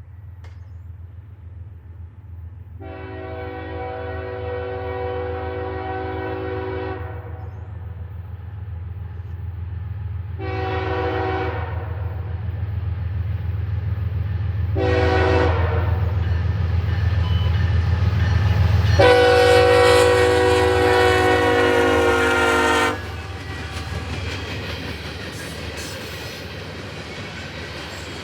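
Diesel locomotive horn on CSX 996 sounding four blasts, long, long, short, long, the pattern of a grade-crossing warning, over the deep rumble of the locomotive growing louder as it approaches. The last blast is the loudest and cuts off suddenly, leaving the steady noise of the train rolling by.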